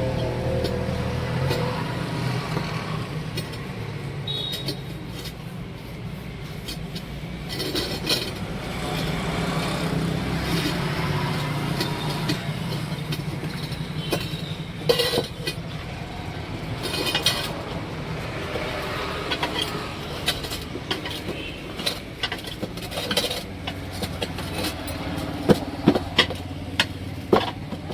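A motor vehicle engine running steadily, with scattered sharp knocks and clanks of tyre-changing work that come thicker near the end.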